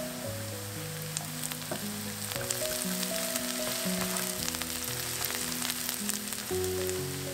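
Chopped onions sizzling and crackling as they fry in a nonstick frying pan, stirred with a plastic spatula that scrapes and taps against the pan.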